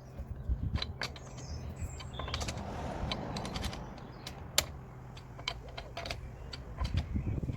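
Irregular sharp metal clicks and clanks, with some rustling, as wheel nuts are fitted and snugged with a wheel brace while a car wheel goes back on; one louder clack comes about halfway through.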